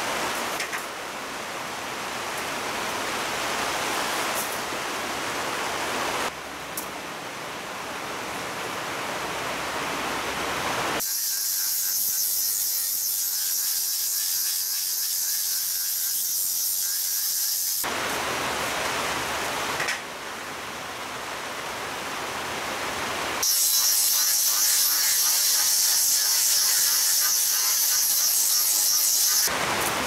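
Cordless angle grinder with a sanding disc grinding the laminated wooden bow stem in two runs of several seconds each, a loud high hiss over a motor whine. In between there is a steadier, duller noise.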